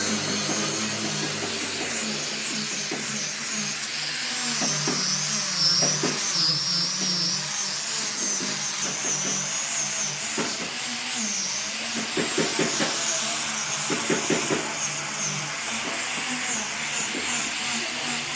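Power tool running steadily, with a few short knocks about two thirds of the way in.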